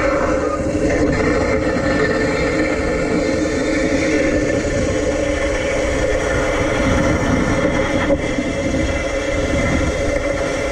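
Electric tram running along its track, heard from a camera on its roof trolley pole: a steady mechanical running noise with a low, uneven rumble of wind on the microphone.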